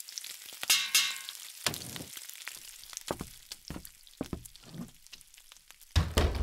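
Food sizzling in a frying pan while a wooden spoon stirs and knocks against it, giving scattered clicks and scrapes. A heavy low thump comes near the end.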